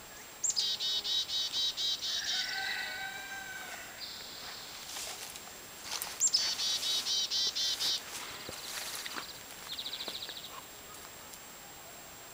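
Songbird calling twice, each phrase a high opening note followed by a quick string of about ten repeated notes. Softer chirps and a short fast trill come in between.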